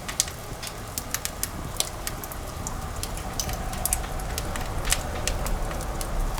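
Firewood burning in a wood-burning fireplace, crackling with irregular sharp pops over a low steady rumble.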